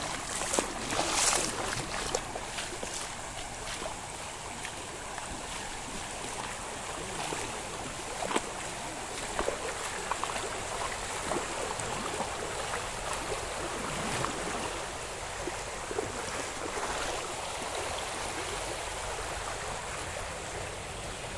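Floodwater rushing across a road in a strong current: a steady wash of flowing water, with a few louder splashes in the first couple of seconds.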